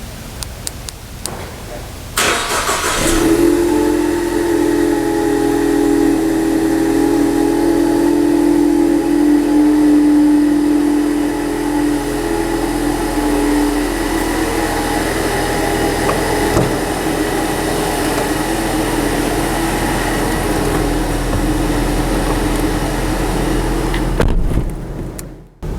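A few light clicks, then a Ford car's engine starts about two seconds in and settles into a steady idle with an even hum. The sound drops away sharply just before the end.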